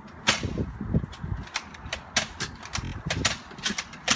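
A string of irregular sharp clicks and knocks, several a second, over a low uneven rumbling.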